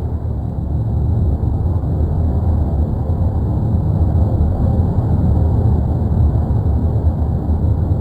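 Volcanic eruption rumbling: a loud, steady, deep rumble that holds level throughout, with no distinct blasts.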